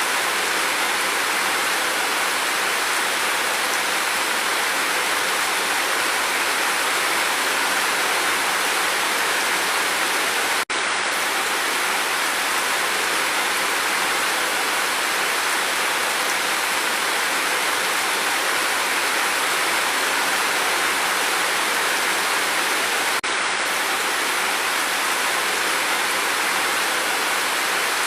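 Steady rain, with no thunder, falling as an even hiss. The sound dips out for an instant twice, about twelve seconds apart.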